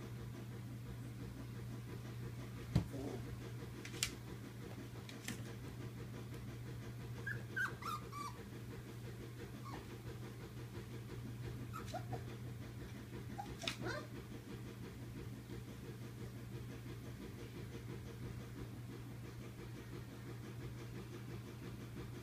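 Very young Polish Lowland Sheepdog puppies, about four weeks old, at play: a few short high squeaks and whimpers, a cluster falling in pitch about a third of the way in and a few fainter ones later. A few sharp clicks, the loudest near the start, and a steady low hum run under them.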